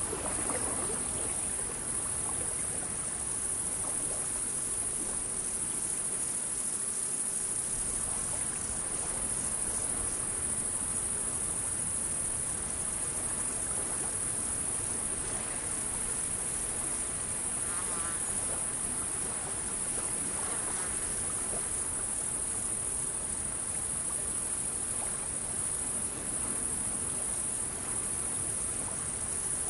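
A steady, high-pitched insect chorus, with a couple of faint wavering calls in the second half.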